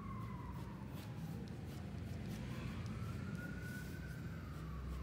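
Emergency vehicle siren wailing slowly, falling then rising again once over a few seconds, under the soft scratching of a pencil shading on paper and a steady low rumble.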